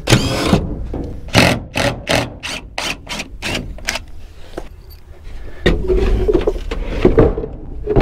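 Cordless drill-driver backing screws out of wooden boards: a run of short pulses about three a second, then a steadier motor whine over the last couple of seconds.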